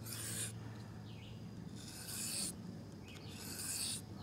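Knife blade stroked across an oiled Arkansas whetstone: three even sharpening strokes, each a soft scraping hiss of about half a second to a second, spaced about a second and a half apart.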